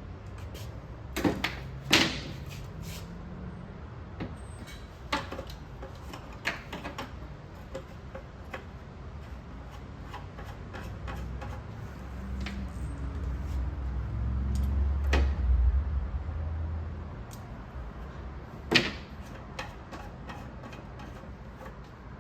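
Plastic platform leg parts being handled and fitted, giving scattered knocks and clicks, the loudest about two seconds in and near the end, over a low rumble that swells in the middle.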